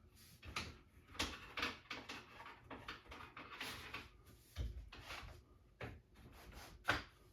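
Light scattered knocks and sliding scrapes as shop-built guide pieces are slid along a Festool aluminium track saw rail and set in position, with a dull thump about halfway through and a sharper click near the end.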